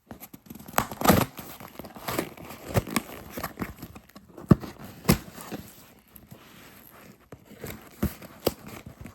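A shipping package being opened by hand: packaging tearing and crinkling, with scattered knocks and rustles of handling.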